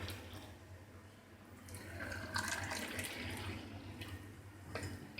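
Liquid running and splashing into a vessel, loudest a couple of seconds in, with a light clink near the end.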